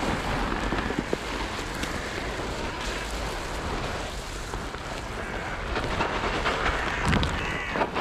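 Steady rushing noise of wind on the microphone, with light rustling and a few faint clicks.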